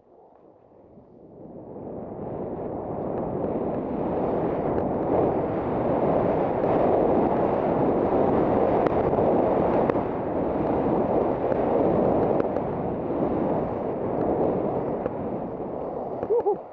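Skis scraping and skidding over hard-packed piste snow, with wind rushing on the helmet camera's microphone. The noise builds over the first two seconds as speed picks up, then cuts off sharply near the end as the skier stops in a spray of snow. The skier's edges are dull and slip on the hard snow.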